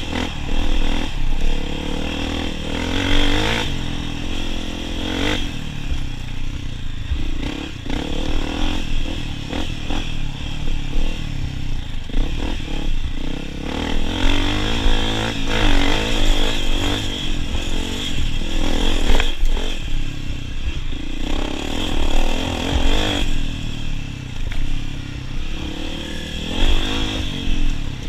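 Honda CRF250F dirt bike's single-cylinder four-stroke engine ridden hard off-road, its pitch repeatedly rising and falling as the throttle is opened and shut.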